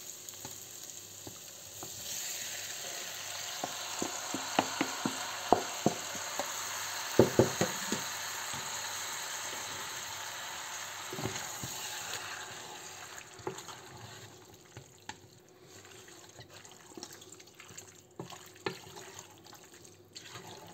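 Chopped beef tripe hitting a pot of hot oil with onion, chorizo and paprika: a loud sizzle starts about two seconds in and fades away after about twelve seconds. Clicks and knocks of a wooden spoon stirring the pot run through it.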